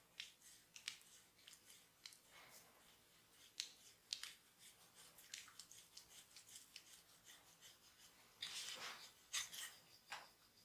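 Faint massage sounds: hands rubbing and pressing on skin, with scattered sharp clicks and a short burst of denser rubbing near the end.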